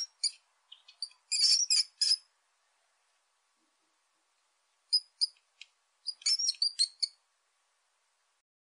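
A bird chirping: four short runs of quick, high-pitched chirps with pauses of up to about three seconds between them, the run about a second and a half in the loudest.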